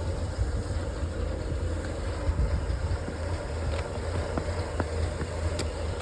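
Truck engine idling steadily with a low rumble, its exhaust running through a freshly patched muffler that no longer leaks. A few faint clicks in the second half.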